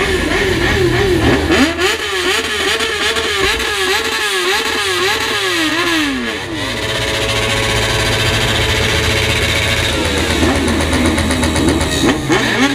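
Motorcycle engine revved over and over, its pitch rising and falling about twice a second, with a few seconds of steadier engine note in the middle.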